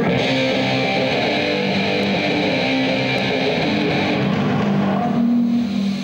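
Punk band soundchecking on stage: loud, distorted electric guitar and bass playing together in a large hall. The brighter upper wash drops away about four seconds in, leaving the lower guitar and bass notes.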